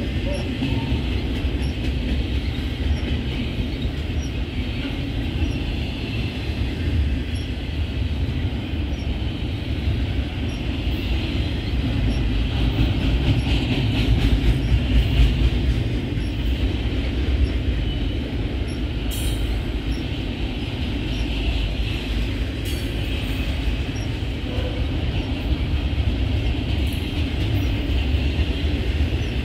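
Double-stack container freight train rolling past, a steady rumble of wheels on rail, with a couple of sharp clanks about two-thirds of the way through.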